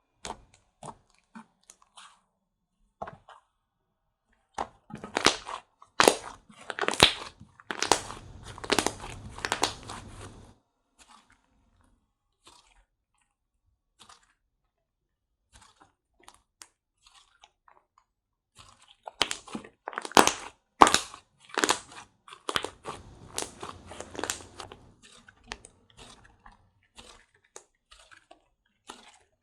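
Slime being squeezed, poked and pressed by hand, giving off crackling clicks and pops. The clicking comes thick in two spells, about five seconds in and again about twenty seconds in, with scattered single clicks between.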